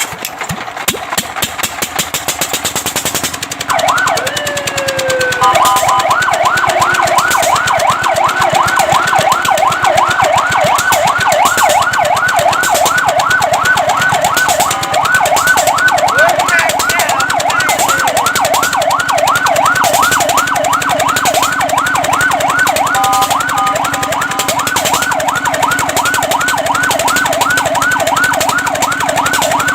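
Fire truck siren starting about three and a half seconds in with a short rising and falling wail, then switching to a fast yelp that sweeps up and down several times a second. The yelp is broken twice by short steady tones. An engine runs underneath with a rapid, even clatter that is plain before the siren starts.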